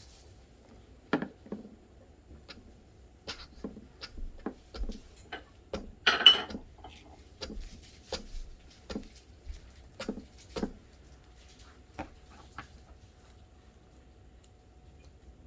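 Small toy kitchen pieces being handled: irregular light clicks and knocks, with a brief louder rattling scrape about six seconds in.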